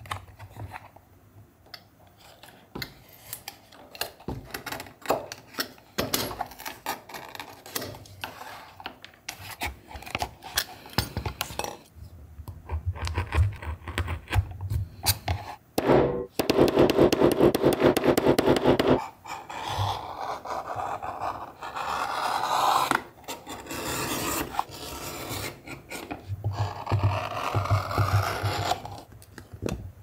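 Leatherworking at a bench: scattered taps and clicks of tools and leather being handled, then a few seconds of fast, even rasping about halfway through, followed by stretches of rubbing and scraping on the leather sheath's edges.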